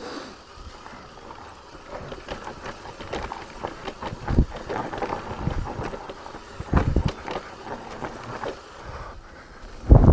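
Santa Cruz Bullit electric mountain bike rolling downhill over a dirt trail covered in dry leaves: tyre noise and rattling over the rough ground, with wind on the microphone. Heavier thumps from bumps come about four and a half and seven seconds in, and a louder one right at the end.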